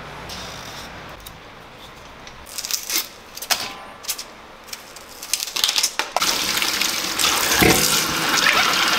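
Knife peeling vegetables over a stainless steel bowl, with scattered light clicks and knocks. About six seconds in, a kitchen tap starts running steadily as the peeled potatoes and onions are rinsed under it.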